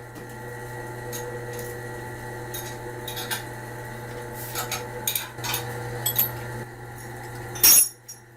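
A steady mechanical hum with scattered metallic clinks and clicks, and a loud clatter near the end, after which the hum stops.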